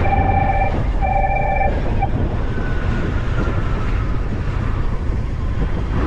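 Motor scooter riding along a city street, with the engine and road rumble mixed with wind buffeting the helmet-mounted microphone. A steady tone sounds twice in the first two seconds.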